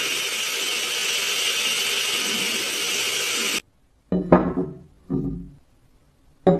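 A power tool running steadily on metal, which cuts off abruptly about three and a half seconds in. A few short, separate scraping strokes follow near the end.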